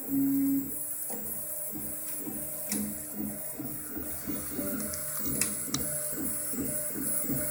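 Craftbot 3D printer running, its stepper motors sounding as a quick series of short tones that keep changing pitch as the print head moves back and forth. It opens with a loud steady tone for about half a second, over a steady high fan hiss, with a few sharp clicks.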